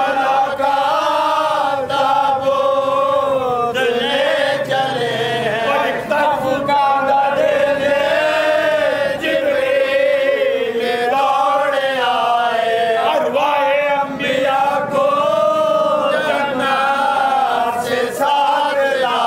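Men's voices chanting a marsiya, a Shia mourning elegy for Karbala, together in a slow, wavering melody.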